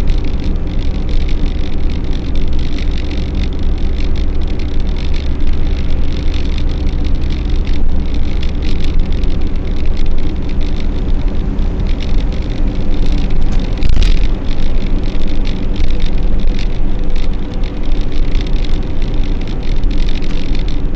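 Steady road and engine noise of a vehicle at highway speed, heard from inside the cabin: a loud low rumble with scattered small rattles and clicks, and a sharper knock about 14 seconds in.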